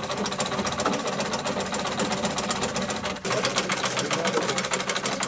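Treadle sewing machine stitching at speed: a rapid, even clatter of the needle mechanism, with a brief pause about three seconds in.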